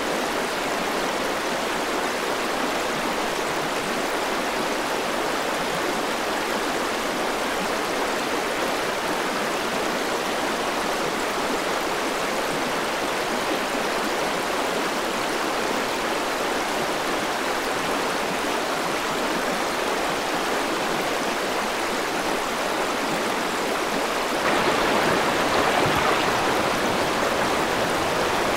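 Alpine mountain stream rushing and splashing over rocks and gravel, a steady rush of water. Near the end it becomes louder and brighter, heard close over shallow water running across gravel.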